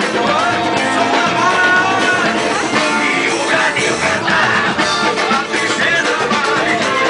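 Loud live carnival band music played without a break, with a singer over guitar and a steady beat.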